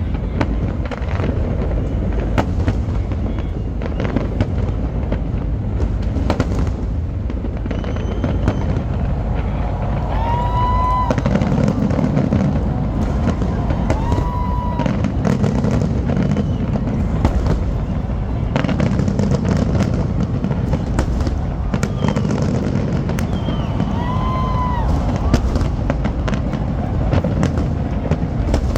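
Fireworks display: a steady run of bangs and crackling bursts over a continuous low rumble of booms.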